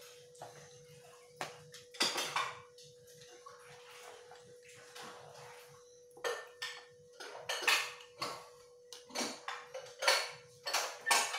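Books and picture cards handled and set down on a tiled floor: papery rustles with light slaps and clatters, in several short bouts, the loudest ones in the second half.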